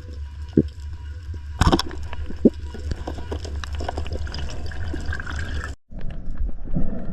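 Water sounds with a steady low rumble and scattered sharp clicks and knocks. About six seconds in the sound drops out for a moment, then comes back rougher and more uneven.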